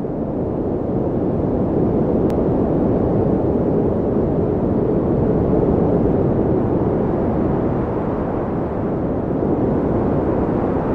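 Blizzard wind blowing: a deep, steady noise of cold wind that builds over the first second or two, then holds loud with slow surges.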